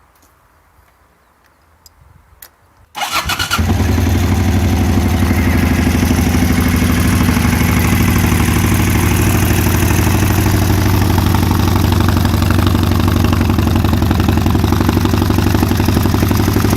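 Suzuki TL1000's 996cc 90-degree V-twin cranks briefly and fires up about three seconds in, then idles steadily. A few faint clicks come before it starts.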